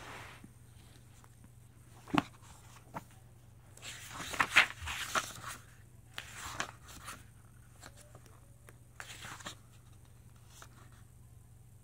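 A hardcover book being handled and its paper pages turned: a soft knock about two seconds in, then rustling page-turn swishes, loudest a few seconds in, with quieter turns after.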